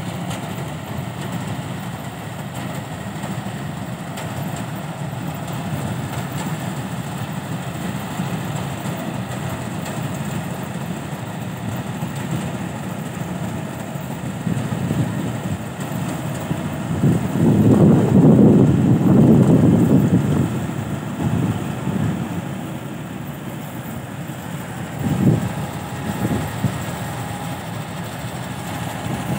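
Combine harvester's engine running steadily while it cuts paddy, a low rumble that swells louder for a few seconds about two-thirds of the way through.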